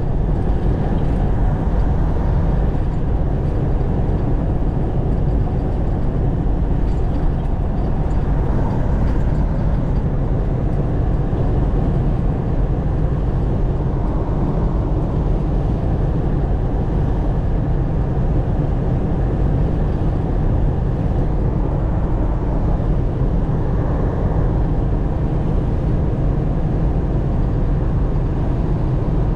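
Semi truck driving at highway speed, heard from inside the cab: a steady low drone of diesel engine and road noise.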